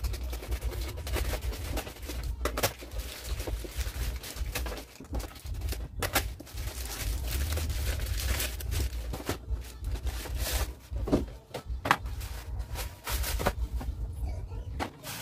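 Plastic courier mailer being cut with scissors and pulled open, then a cardboard shoebox opened and its paper wrapping rustled: irregular sharp crinkles, snips and rustles over a low steady hum.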